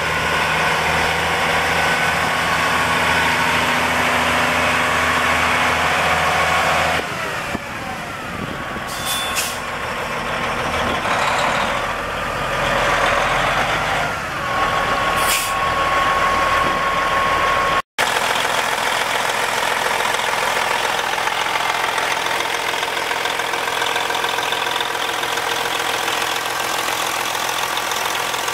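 Detroit Diesel Series 60 12.7 L inline-six turbo diesel of a 1994 Peterbilt 377, running as the truck moves, with two short air hisses in the first half. After a cut it idles steadily, heard close at the engine bay.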